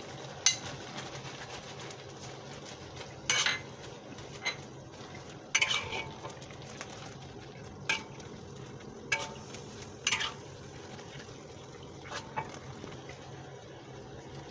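Metal spatula scraping and knocking against a wok while stir-frying napa cabbage, about ten irregular strikes and scrapes, over a steady hiss of the vegetables frying.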